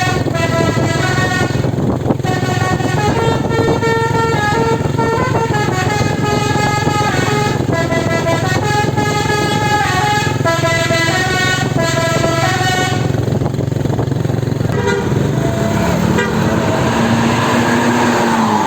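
A bus's telolet horn plays a tune of short stepped notes over the bus's engine running underneath. The tune stops about two-thirds of the way through, and near the end the engine note rises and then falls.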